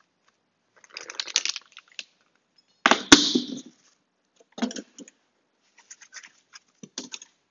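Cardboard and styrofoam packing being pulled out of a plastic shipping crate: scraping and rustling, with one sharp crack about three seconds in, then scattered short scratches.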